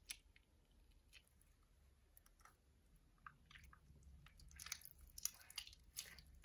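Faint sticky clicks and crackles of thick, rippy clear slime being squeezed and stretched in the hands, sparse at first and busier in the second half.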